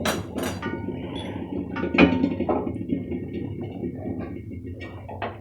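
A few sharp clinks of a metal spoon against the pan while stirring the jaggery mixture as it cooks, over a low steady hum.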